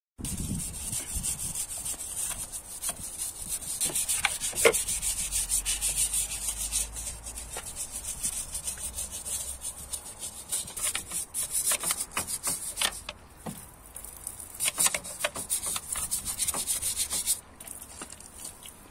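Hand brush scrubbing a foam-covered engine bay, in runs of quick rasping strokes with short pauses. The scrubbing stops near the end.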